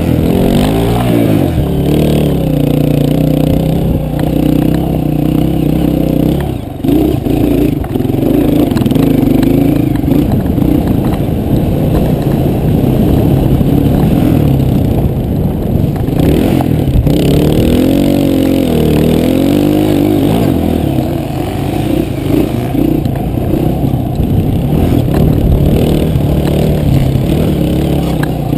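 Enduro dirt bike engine heard from on board, revving up and down continuously as the bike is ridden over a dirt course, its pitch rising and falling with the throttle, with a short drop in level about a quarter of the way in.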